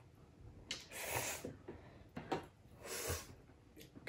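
Ramen noodles being slurped in about three short noisy sucks, with a sharp click about two seconds in.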